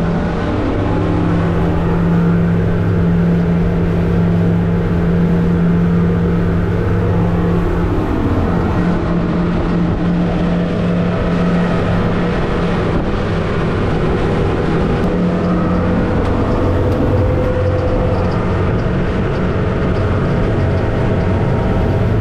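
Twin Suzuki DF200APX four-stroke outboards running hard and steady near wide-open throttle, just under 6,000 RPM.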